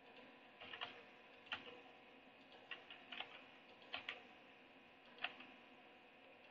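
Faint, scattered clicks of computer keys as numbers are typed into a form, about ten in all, some in quick runs of two or three, stopping a little after five seconds in.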